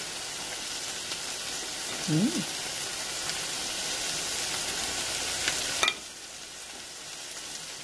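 A pot of yukgaejang simmering on the stove with a steady sizzling bubble while a wooden spoon stirs through the soup, knocking lightly on the pot a couple of times. The hiss drops suddenly about six seconds in.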